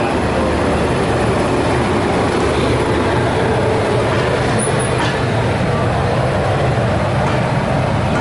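A passenger train running, heard from its open coach doorway: a steady rumble of wheels on rails mixed with the rush of air through the open door.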